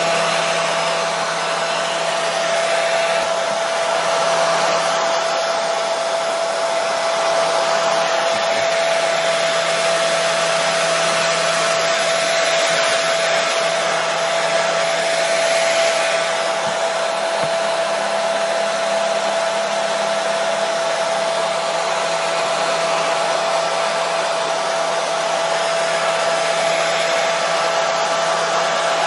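Hair dryer running steadily: a constant, even rushing hiss with a steady whine and a low hum under it.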